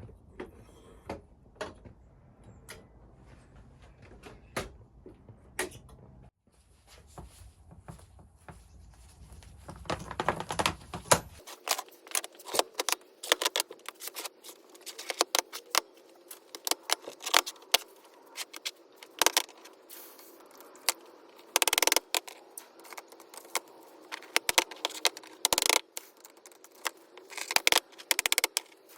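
Small metal objects handled and knocked together, giving an irregular run of sharp clinks and clicks, sparse at first and then quick and dense from about ten seconds in.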